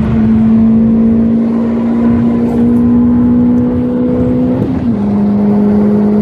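Car engine and road drone heard while driving at steady revs, a steady droning tone that creeps up slightly and then drops in pitch about three-quarters of the way through as the revs fall.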